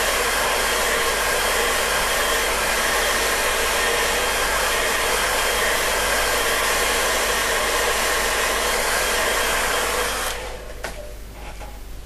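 Handheld hair dryer blowing steadily to dry a watercolour wash, switched off about ten seconds in, followed by a few light knocks.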